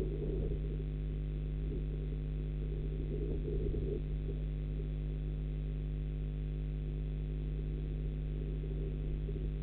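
Steady electrical hum made of several even tones, with brief faint noise patches just after the start and again about three and a half seconds in.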